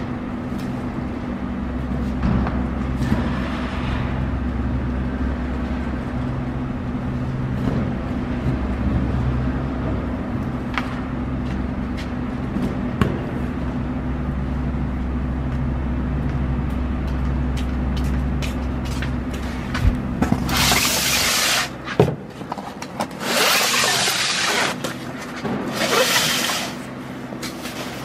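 Steady low machinery hum with a few sharp knocks as cardboard boxes are stacked. The hum stops about three-quarters of the way in, and several loud rushes of scraping, rustling noise follow close by.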